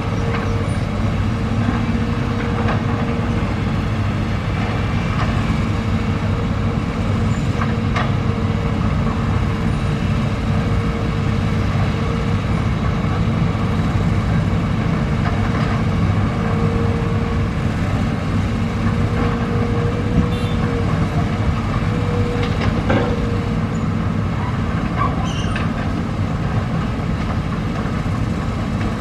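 Excavator's diesel engine running steadily, with a steady higher whine over it and a few sharp knocks here and there.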